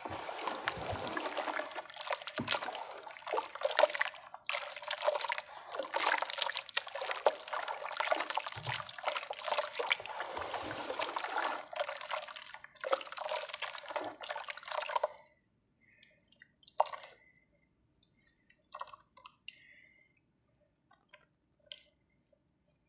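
Hands squeezing and kneading a watery marble-powder slurry: wet squelching, sloshing and dripping for about fifteen seconds, then it stops, leaving only a few faint drips.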